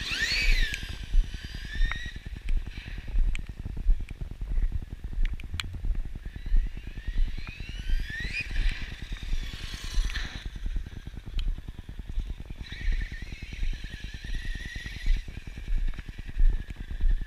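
Electric motor and drivetrain whine of an Axial Yeti XL radio-controlled truck. The pitch rises as it speeds away near the start and again about eight seconds in, then holds steadier toward the end. A constant low rumble on the microphone runs under it.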